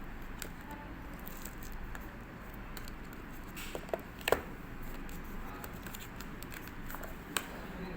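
Handling sounds from unboxing earbuds: a few sharp clicks and taps over a steady low hiss, the loudest about four seconds in.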